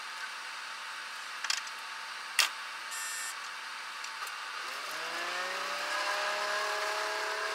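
Diesel engine of a JR Central KiHa 85 railcar revving up as the train pulls away, heard from the front of the train. Its pitch rises from about halfway through and then levels off. Before that there is a steady hiss with a couple of clicks and a brief high beep.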